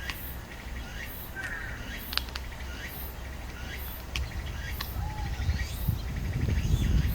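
An outdoor chorus of calling insects, the tsukutsukuboushi cicada and matsumushi pine cricket the recording is made for, with a high pulse repeating a little more than once a second and a rhythmic ticking call. A few short bird chirps and clicks come in, and a low rumble grows louder toward the end.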